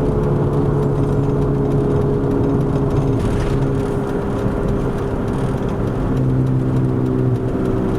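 A 2001 Chevy Venture van heard from inside the cabin while driving: road noise under a steady low drone from the worn passenger-side front wheel bearing. The drone weakens about halfway through and comes back near six seconds in, as weight shifts off and back onto that wheel in turns.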